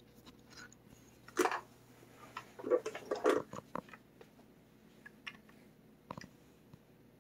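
Handling noises as the AK pistol with its muzzle brake fitted is turned in the hands: a scrape about a second and a half in, a cluster of rubs and clicks around three seconds, and a short knock about six seconds in.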